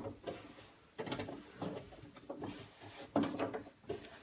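Clunks and rattles of handling inside a pickup truck's door around the window regulator mechanism, in three or four short bouts.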